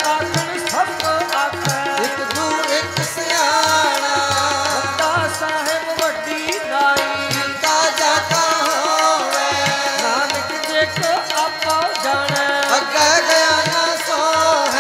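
Sikh kirtan: voices singing Gurbani to the accompaniment of harmoniums and tabla, with a steady tabla beat under the sustained harmonium reeds.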